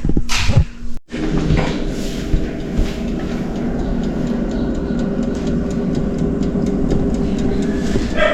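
A vehicle running steadily: a constant engine hum with road noise and faint light ticking, after a brief drop to silence about a second in.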